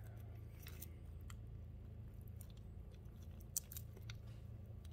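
Faint clicks and smacks of grease-covered gloved hands pressing and rolling a tapered roller wheel bearing, packing it with grease by hand. The sharpest click comes about three and a half seconds in, over a steady low hum.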